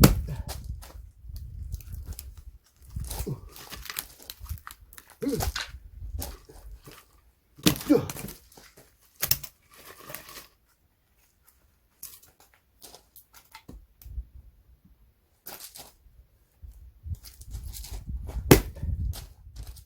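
Axe blows splitting firewood logs, each a sharp strike with a thud and the wood cracking apart. Several strikes fall in the first half, there are lighter knocks in a quieter stretch, and a hard blow comes near the end.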